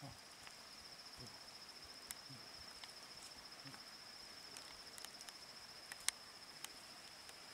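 An insect trilling steadily on one high pitch, with faint scattered ticks and a few short, soft low sounds. A sharper tick comes about six seconds in.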